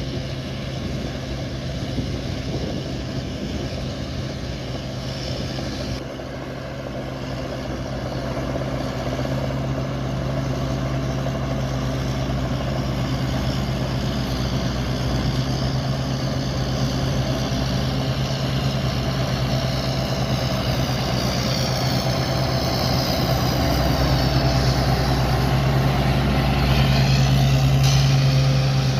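Large rice combine harvester's engine running steadily, growing louder in the last few seconds.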